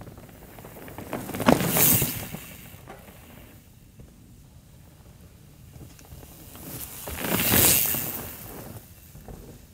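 A mountain bike passing by on a dirt singletrack: tyres rolling and crunching over the soil swell up and fade away, once near the start with a few sharp knocks, and again more loudly near the end.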